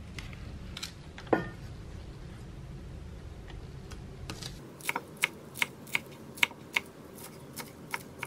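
Chef's knife chopping green onions on a wooden cutting board: a run of sharp chops, about three a second, starting a little past halfway. Earlier, a single louder knock about a second in.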